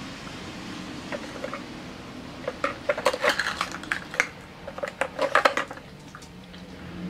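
Hard plastic cups of a dog puzzle feeder clattering and knocking against the plastic base and brick paving as a dog noses them out. The clacks come in a quick flurry from about two and a half seconds in until nearly six seconds.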